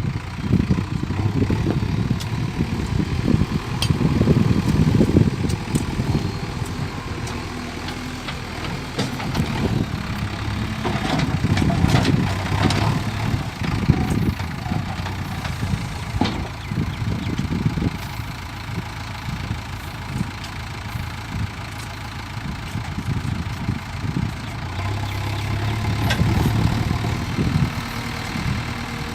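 JCB 3DX backhoe loader's diesel engine running, its level rising and falling as it works, with a few sharp knocks now and then.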